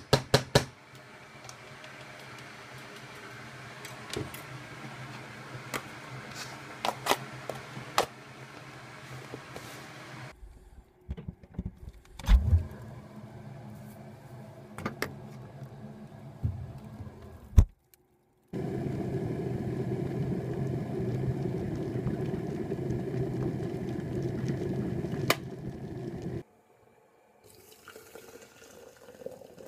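Water running into a container for about eight seconds, steady and rushing, cutting off suddenly. Before it come clicks, clinks and knocks of kitchen items being handled over a low steady hum, broken by abrupt cuts.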